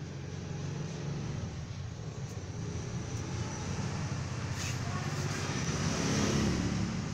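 A vehicle engine running with a steady low hum that swells louder about six seconds in, then eases off.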